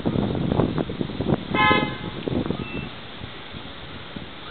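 Car horn giving one short toot about a second and a half in, over uneven street traffic noise that dies down after a few seconds.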